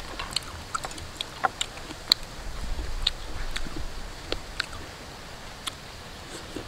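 A person chewing and eating braised chicken and cauliflower: irregular small wet mouth clicks and smacks, over a faint low rumble.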